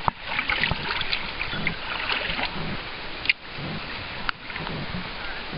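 Moving water splashing and running, with two sharp knocks about three and four seconds in.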